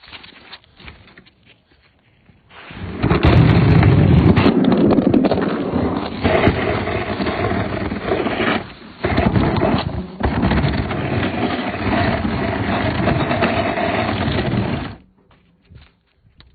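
A refrigerator being dragged across a floor: loud scraping that starts about two and a half seconds in, breaks off briefly twice, and stops near the end.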